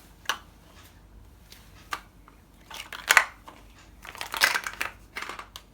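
Plastic Mega Bloks building blocks clicking and clattering as bare feet step onto them and they shift against each other: a few separate sharp clicks, then a longer rattle about four seconds in.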